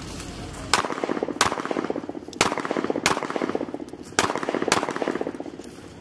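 Semi-automatic pistol firing, six sharp shots over about four seconds at an uneven pace, each report trailing off.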